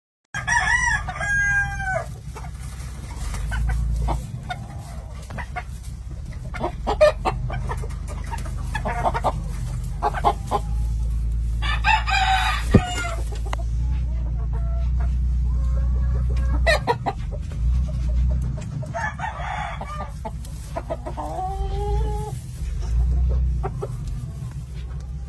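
Game fowl roosters crowing several times, with chickens clucking in between, over a steady low rumble.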